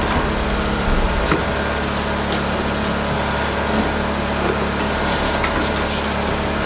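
Steady low mechanical hum, with a few faint clicks and taps over it.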